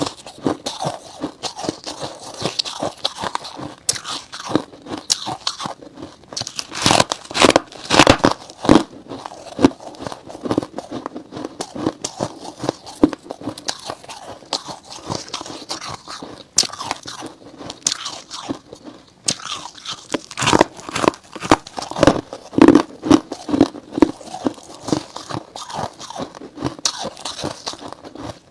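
Freezer frost being bitten and chewed close to a clip-on microphone: a dense run of sharp crunches, with the loudest flurries about a quarter of the way in and again about three-quarters through.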